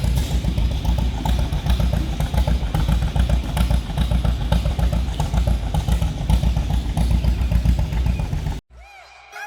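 Engine running steadily with a loud low rumble and rattling clatter, cut off abruptly near the end.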